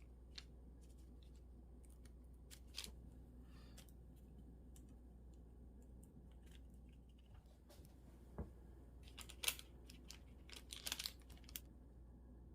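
Quiet room tone broken by scattered small clicks and crinkly handling noises: a few single ones, then a quick cluster about nine to twelve seconds in.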